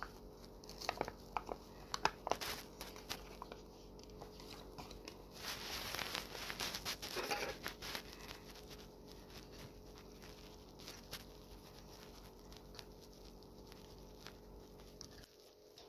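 Instant ramen cup being handled: scattered small clicks and taps, then a few seconds of crinkling as the printed lid is peeled back and pulled off, followed by light clicks of a fork stirring the noodles in the cup. A faint steady hum underneath stops near the end.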